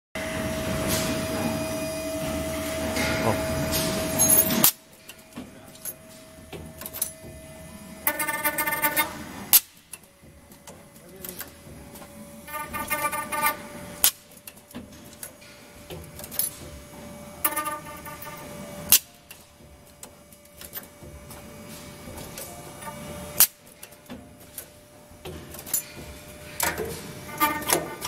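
Automatic key cutting machine running through its cycle. A spindle motor hums steadily while the tooth-milling cutter cuts in repeated bursts every four to five seconds, punctuated by sharp clacks of the pneumatic feeding cylinders. The machine is louder and noisier for the first few seconds.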